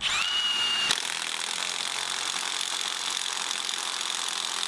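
Cordless impact tool turning a socket on a cylinder head bolt of a Subaru EJ255 engine, backing the bolt out. It opens with a short rising motor whine, then from about a second in runs steadily under load with a harsh continuous rattle.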